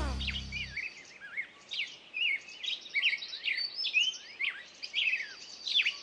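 Songbirds chirping and singing in quick, varied phrases of short rising and falling notes, several calls a second. Music fades out in the first second.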